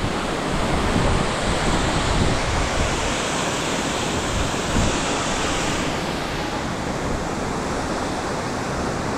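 Shannon Falls waterfall: a steady rush of falling water, with wind buffeting the microphone in low, uneven thumps.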